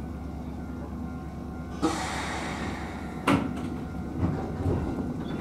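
Electric train standing at a station with its equipment humming steadily, and two sharp knocks about two and three seconds in as its sliding doors shut before departure.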